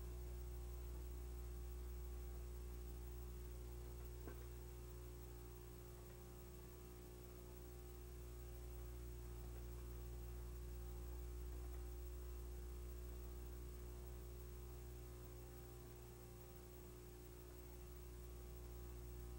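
Faint steady low hum with a steady higher tone above it. Its level swells and eases slowly, with a single small click about four seconds in.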